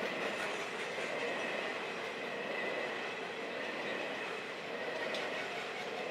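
Freight train rolling along, its wagon wheels on the rails making a steady noise with a thin, steady high squeal over it.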